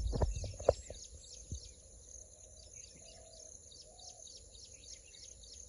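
Open-air ambience of many small birds chirping quickly and high-pitched, over a steady high hiss. A few soft knocks and low wind rumble come in the first second.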